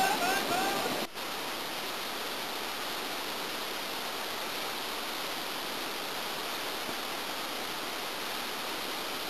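Steady rush of a waterfall and whitewater, an even noise with no beat. In the first second a voice gives a few short rising-and-falling calls over the water, then the sound cuts to a smoother, unbroken rush.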